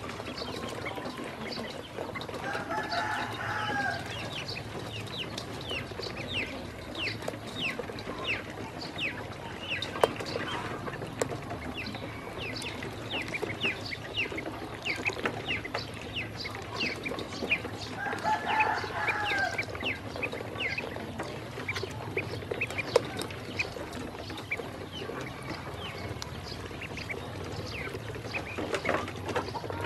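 Ducklings peeping constantly, a rapid stream of short, high, falling chirps. Twice, about 3 seconds and 19 seconds in, a longer and lower two-tone call sounds over them, and there are a couple of sharp taps near 10 and 23 seconds.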